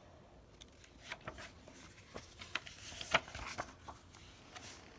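Pages of a hardcover cookbook being handled and turned: faint paper rustles and small ticks, the loudest about three seconds in.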